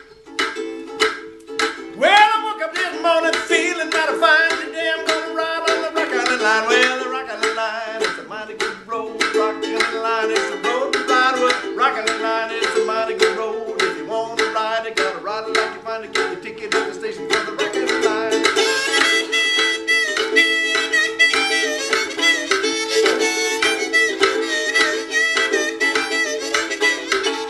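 Harmonica and ukulele played together by one player: the ukulele strummed in a steady chugging rhythm, the harmonica coming in about two seconds in with bent, sliding notes, then higher, held notes in the last third.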